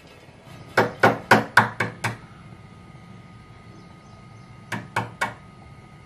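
Sharp hard knocks from kitchen work: six in quick succession, about four a second, then three more near the end.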